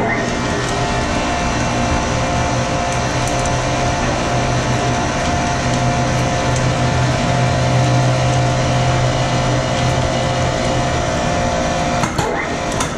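Steady machinery hum from a GE 1.6 MW wind turbine, heard inside its steel tower: a low drone with several held tones above it. The hum changes abruptly about twelve seconds in, with a few clicks.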